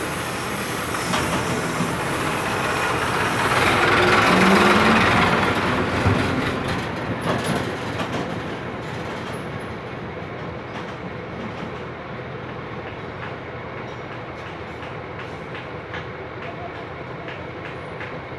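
Steady background noise that swells to its loudest about four to five seconds in, with a brief low tone at the peak, then eases off to a quieter steady hiss; faint light clicks scattered through.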